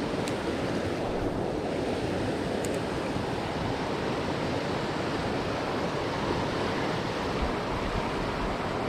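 Steady rushing of river water flowing past the bank, with two faint ticks in the first three seconds.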